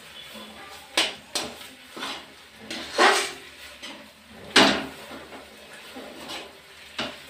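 Metal spoon stirring thick cooked semolina dough in an aluminium wok, making irregular scrapes and knocks against the pan. The loudest strokes come about three and four and a half seconds in.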